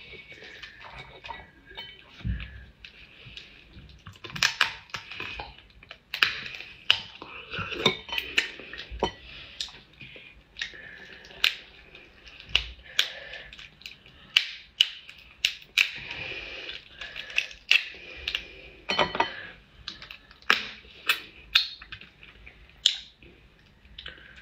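Crab shell cracking and snapping under the fingers, dozens of short sharp cracks as a whole crab is broken apart by hand: the top shell pried off and the legs twisted from the body.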